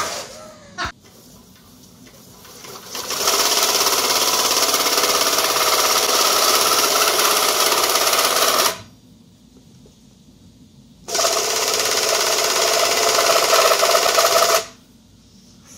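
A CMI cordless drill runs at speed, spinning a kitchen mixer through its repaired, 3D-printed nylon drive. It runs for about six seconds, stops for two, then runs again for about three and a half seconds.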